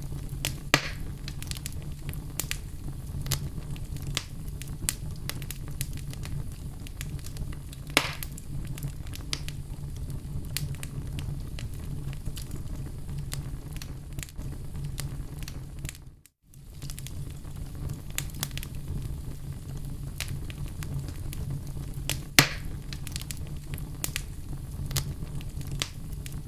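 Wood fire burning in a fireplace: a steady low rumble of flames with constant fine crackling and three louder pops. The sound cuts out for a moment about sixteen seconds in.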